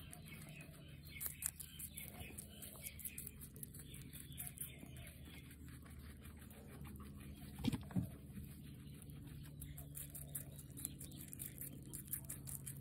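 Guinea pig chewing red capsicum (bell pepper): rapid, crisp crunching clicks, with a louder crunch about eight seconds in.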